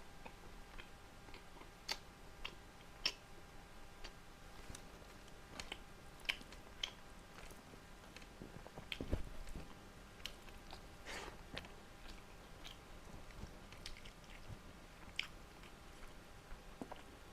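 A person chewing and biting food, with faint irregular wet clicks and soft crunches and a dull low thump about nine seconds in.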